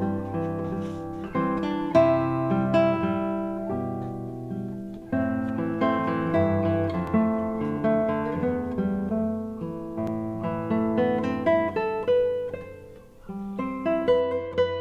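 Background music: acoustic guitar playing a steady run of plucked notes, with a brief dip in level near the end.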